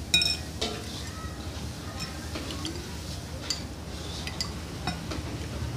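A metal spoon clinking against a ceramic bowl and a glass mug: a series of short, sharp, ringing clinks, the loudest right at the start, over a steady low background rumble.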